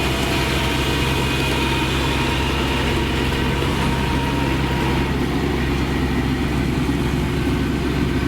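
Kubota DC-35 combine harvester's diesel engine running steadily, with a high whine over it that drops away about five seconds in.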